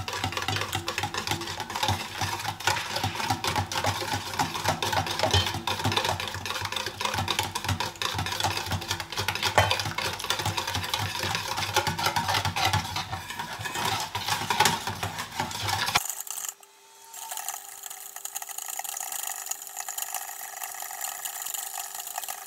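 Wire whisk clattering rapidly against a stainless steel bowl, beating eggs as warm milk is poured in a little at a time so the eggs don't cook. About three quarters of the way through the sound changes abruptly to a quieter stretch with a steady hum underneath.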